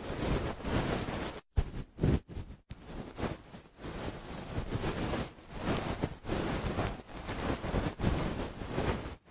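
Ear-cleaning ASMR sounds on a binaural dummy-head microphone: irregular swishing and rustling strokes rubbing close against the ear, some much louder than others.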